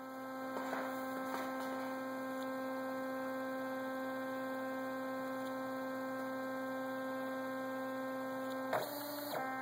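Two stepper motors driven by stepper drives, turning steadily under CNC control software and giving off a steady pitched hum. Near the end the tone breaks and briefly jumps in pitch as the commanded motion changes.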